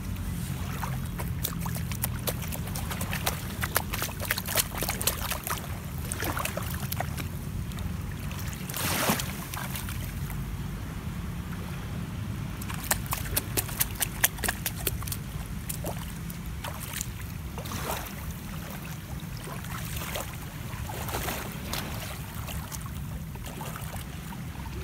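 Feet in wet socks squelching on waterlogged sand and splashing through shallow seawater, in clusters of small wet clicks and crackles, over a steady low wind rumble on the microphone.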